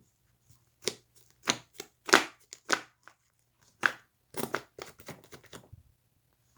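Slime being squeezed and pressed by hand: an irregular string of short squishes and pops, about eight separate ones and then a quicker run of smaller ones near the end.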